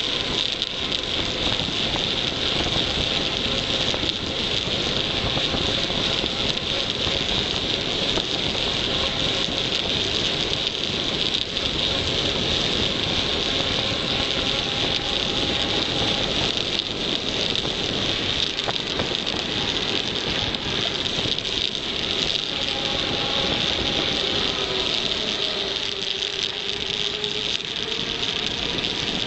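Steady rush of wind over the microphone mixed with tyre noise as a KTM Tombstone mountain bike runs fast down an asphalt road. Faint tones come and go, twice.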